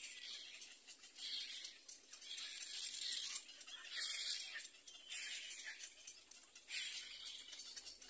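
Cormorant chicks begging in the nest: a run of short, harsh, raspy calls, about one a second.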